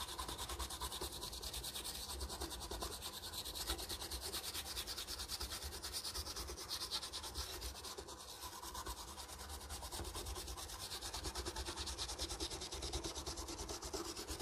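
A small brush scrubbing the solder side of a CRT television's circuit board with fast, steady back-and-forth strokes, cleaning the board with thinner.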